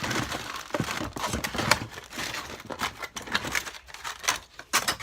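Slightly sticky slime being squished and stretched by hand: a dense run of crackles and small clicks.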